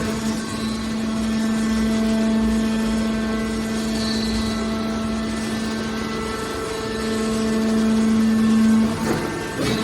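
Hydraulic steel wire baler running, its pump motor giving a steady hum, with a short clatter near the end.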